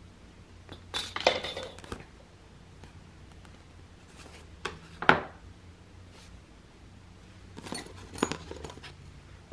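Scattered clicks and light metallic clinks of small jewellery hand tools and wire being cut and handled, with a short sharp click about five seconds in the loudest.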